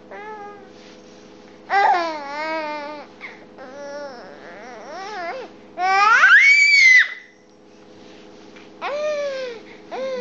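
Five-month-old baby fussing and babbling in a string of high, whiny calls, the loudest a squeal that rises and falls about six seconds in. A faint steady hum sits underneath.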